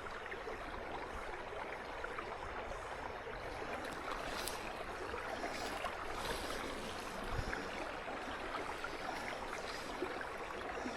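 Faint steady rush of running water, with a few small ticks.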